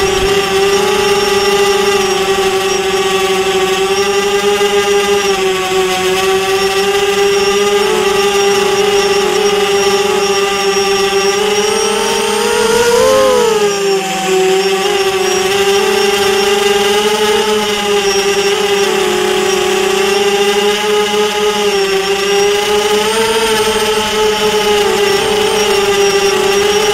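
Small drone's electric motors and propellers whining steadily, heard close up from a camera carried on the drone. About halfway through the pitch rises and falls back as it climbs.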